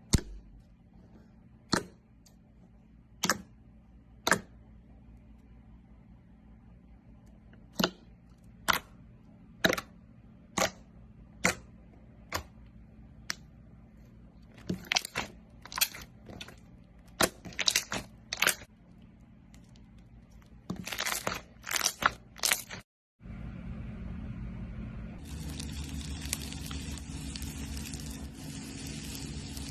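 Slime being pressed and squeezed, giving sharp crackling pops: single ones a second or two apart, then quick clusters. After a cut about 23 seconds in, a steady fizzing crackle takes over.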